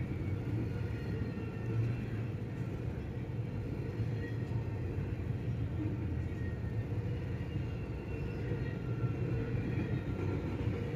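BNSF double-stack intermodal freight train's container cars rolling past, a steady rumble of wheels on rail, heard from inside a car.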